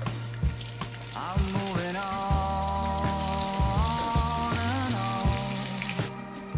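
Zucchini, carrot and oat rolls sizzling as they fry in shallow oil in a pan, with instrumental background music over it; the sizzling cuts off about six seconds in.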